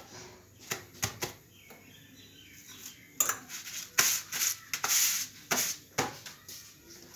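Kitchen dishes and utensils being handled: scattered clinks and knocks, busiest in the middle, with a cloth rustling against a plate as freshly made rotis are wrapped.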